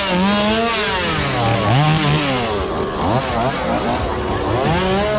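A chainsaw engine revving and easing off over and over, its pitch sweeping up and down several times.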